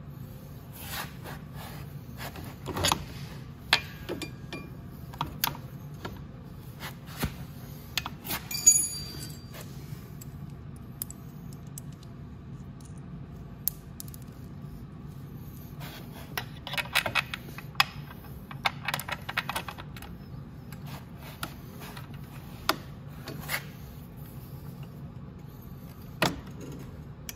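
Metal hand tools and parts clinking and rattling as they are handled, over a faint steady low hum. There is one ringing metallic clink about nine seconds in, and a quick run of rattling clicks about halfway through, like sockets being sorted.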